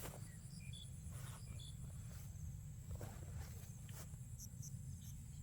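Insects trilling steadily at a high pitch, with a few short high chirps, scattered soft clicks like footsteps, and a low rumble underneath.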